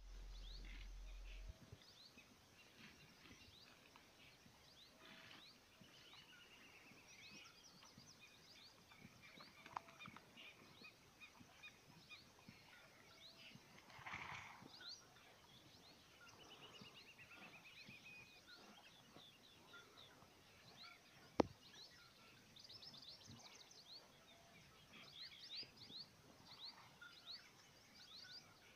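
Faint outdoor ambience of small birds chirping, with a few rapid trilled call series, and a single sharp click about two-thirds of the way through.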